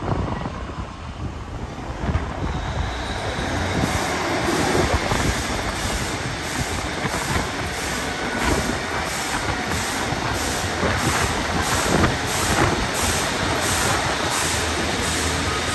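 Class 150 Sprinter diesel multiple unit pulling out and running past along the platform, its underfloor diesel engines running. From about four seconds in, an even clicking of roughly two per second runs over it.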